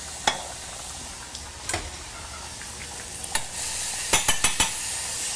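A knob of butter sizzling in a hot stainless-steel saucepan. The hiss grows a little past halfway, and a few sharp clinks of a utensil against the pan come near the start and in a quick cluster toward the end.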